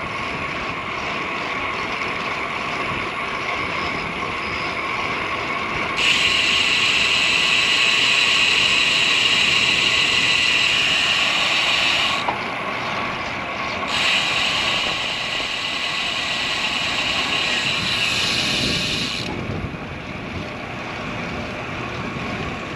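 Road bike's rear freehub buzzing while the rider coasts, in two spells of several seconds that start and stop abruptly, over steady wind and tyre noise.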